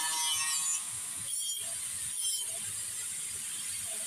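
Angle grinder grinding the steel of an iron folding door, its disc whining and screeching against the metal, then lifted off the steel just under a second in and left running free with a steady high whine.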